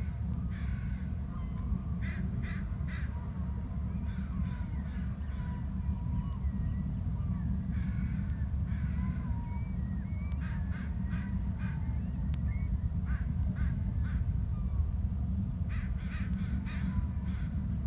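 An eagle calling in repeated series of short, high chattering notes, three to five in quick succession, every few seconds, over a steady low rumble.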